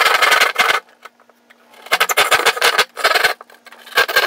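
Hand blade cutting through drywall along the outline for an outlet box: rasping, scraping strokes in four bursts separated by short pauses.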